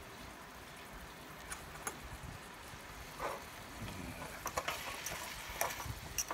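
Thin T-bone steak starting to sizzle faintly in a hot aluminium mess tin, with light crackles. In the second half a metal fork clicks a few times against the tin.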